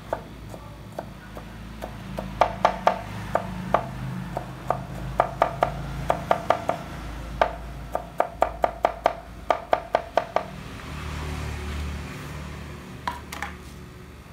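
Kitchen knife chopping garlic on a wooden cutting board: sharp knocks in quick runs of several strokes, stopping about ten seconds in, with a few more strokes near the end.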